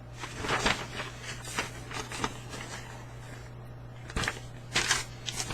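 Irregular rustling and light knocks of paper items being handled and pulled from a box, over a steady low hum.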